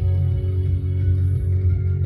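Background music with steady held tones, a strong bass and a plucked guitar.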